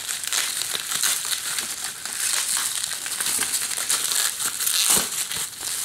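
Plastic bubble wrap crinkling and crackling steadily as hands peel it off a disc case, with a single knock about five seconds in.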